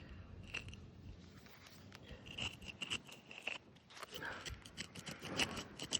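Hand file rasping over a brake pad's surface in irregular scrapes, among clicks of handling, taking off the caked dirt layer.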